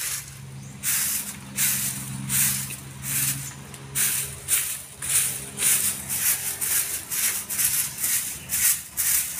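Stick broom (walis tingting) sweeping leaves and litter across a dirt yard, a scratchy swish about twice a second.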